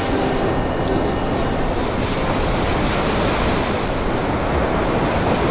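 Ocean surf breaking and washing, a steady rushing roar of waves crashing hard on the shore.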